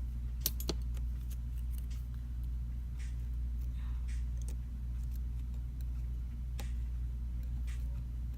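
A steady low hum with light clicks and taps of small parts being handled during phone reassembly, the sharpest two about half a second in and fainter ones scattered after.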